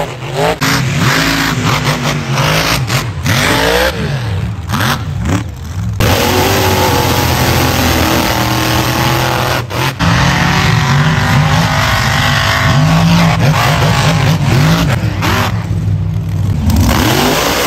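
Mud-bog race buggies' engines revving hard at full throttle, pitch climbing and falling again and again as they power through the mud. The sound breaks off abruptly a few times.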